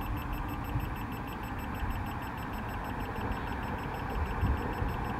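Steady low rumble of freeway traffic, heard from inside a parked car with its window open.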